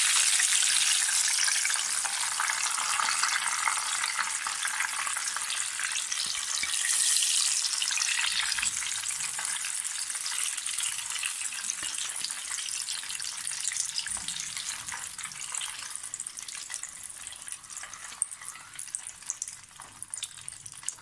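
Breaded, cheese-stuffed green chilies deep-frying in hot oil in a pan: a dense, steady crackling sizzle that gradually dies down.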